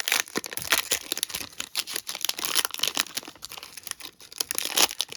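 Plastic wrapper of a trading-card hanger pack crinkling and crackling in irregular bursts as hands pull and tug at it, a pack that is hard to get open.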